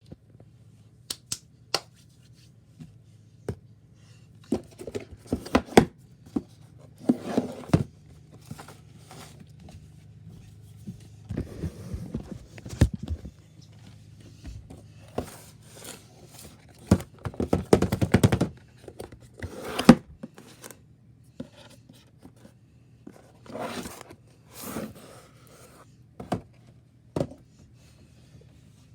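A headset's box and packaging being opened and handled by hand: scattered sharp clicks and knocks with stretches of scraping, rustling and tearing of cardboard and plastic, the busiest and loudest bursts around 5–8 seconds and 17–20 seconds in. A steady low hum runs underneath.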